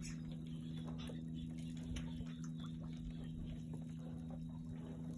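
Water lapping with small irregular splashes and ticks at the surface over fish swimming just below, over a steady low hum.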